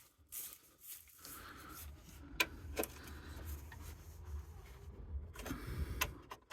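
Hand wrench working on the strut-tower mounting bolts under the car's cowl: a few sharp metallic clicks and clinks of tool on bolt, over low handling rumble and rustling.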